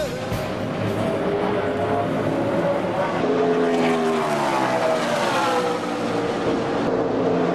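NASCAR Truck Series race trucks' V8 engines running at speed on the track, their pitch sweeping down and back up several times as they go by.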